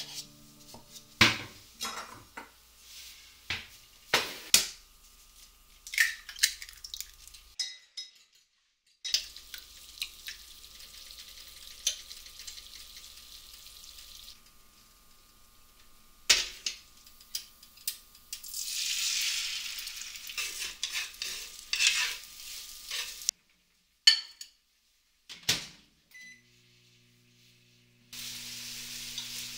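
A run of short kitchen sounds: a metal spoon clinking and stirring in a ceramic bowl of batter, food sizzling in a frying pan, and a microwave oven clicking, with one short beep.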